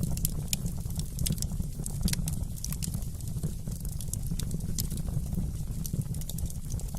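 Wood fire in a fireplace crackling: many sharp, irregular pops and snaps over a steady low rumble of the flames.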